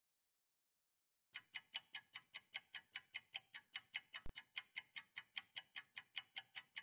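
Clock ticking sound effect: sharp, even ticks at about five a second, starting after about a second of silence. A single brief low thud falls about two-thirds of the way through.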